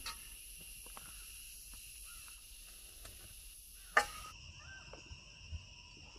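Steady, faint, high-pitched chirring of insects, with faint small clicks of food being served onto paper plates and one sharp click about four seconds in.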